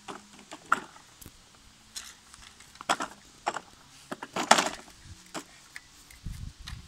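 Plastic ride-on toy car pushed over grass and paving stones: its wheels and body give scattered clicks and knocks, loudest about four and a half seconds in.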